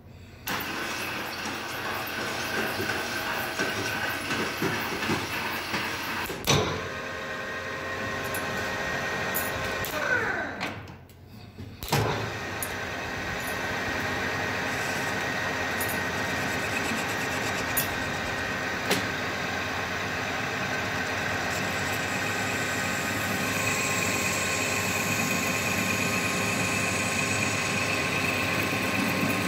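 Metal lathe starting up and running steadily with a whine of motor and gearing, spinning a stud bolt in a four-jaw chuck. Partway through it winds down with a falling whine and a knock, then starts again. In the last few seconds a high-speed steel tool bit cuts into the spinning bolt to part it off, adding a higher scraping hiss.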